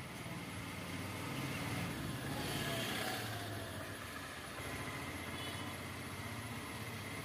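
Low, steady engine rumble, like a vehicle running, that swells briefly about two to three seconds in.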